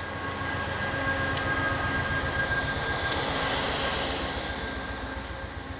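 Amtrak Genesis diesel locomotive passing close by at the tail of a short passenger train: a low engine rumble with a steady high whine over rolling wheel noise, loudest about three seconds in and then fading as it moves past. A few sharp clicks sound along the way.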